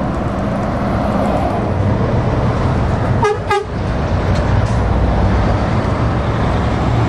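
Lorries and cars passing close by on a road, heavy diesel engines running steadily under road noise. About three seconds in the sound dips briefly with two sharp clicks.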